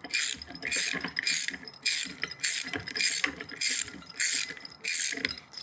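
Ratchet wrench clicking as it tightens the center bolt of a core chuck: about nine short rattles in an even rhythm, a little under two a second, one on each swing of the handle.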